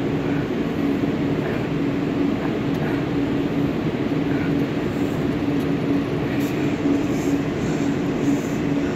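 Steady mechanical background hum with a constant low-pitched tone running under it.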